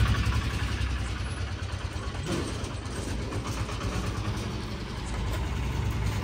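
Motorcycle engine running steadily at idle, a low even pulsing rumble.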